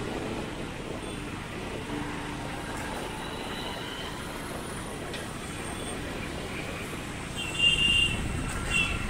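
Steady road and traffic noise heard from a car driving through city streets. About two thirds of the way in and again near the end, a vehicle horn gives short, high-pitched honks.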